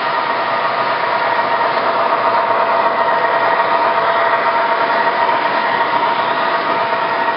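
O-gauge model subway trains running on three-rail track: a steady motor whine over rolling wheel noise.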